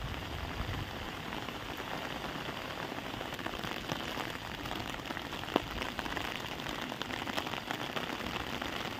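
Steady rain falling, an even hiss of drops, with one small click about five and a half seconds in.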